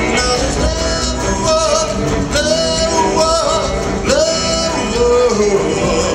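Live band playing a slow rock-and-roll song on electric guitars, upright bass and drums, with held melody lines that bend in pitch between the sung phrases.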